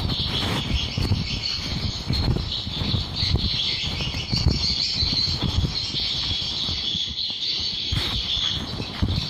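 Many edible-nest swiftlets twittering and chirping together in a dense, continuous high chatter inside a dark swiftlet house at roost, with irregular low fluttering thumps underneath.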